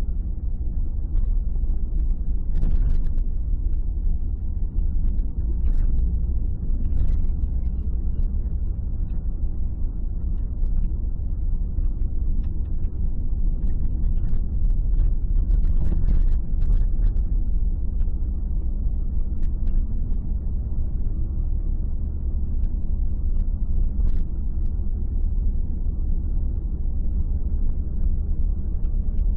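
Car cabin noise while driving: a steady low rumble of engine and tyres on the road, with a few faint knocks and rattles.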